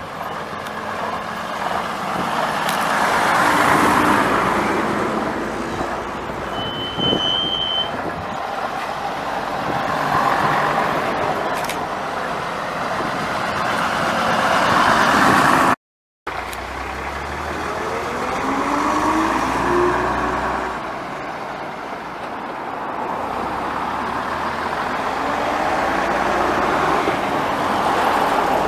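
A procession of vintage London Transport RT double-deck and RF single-deck buses driving past one after another, each diesel engine swelling up and fading away as it passes. About two-thirds of the way through, engine notes rise in pitch as a bus accelerates through its gears.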